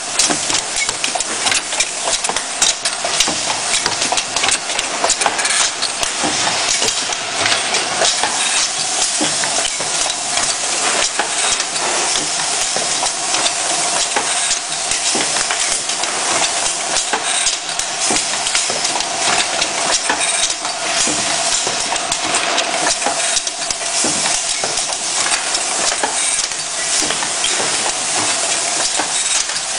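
Toy ring cap filling machine running: a continuous hiss thick with small clicks and knocks, over a steady mid-pitched hum that fades out near the end.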